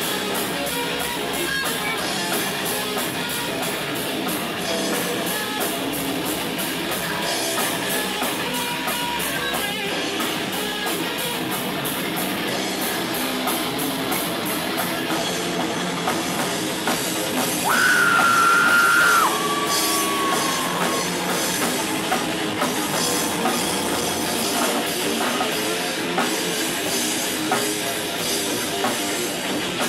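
Live rock band playing loud: electric guitars and drum kit. About two-thirds of the way through, a held high note stands out loudly over the band for a second or so, then steps down in pitch and fades.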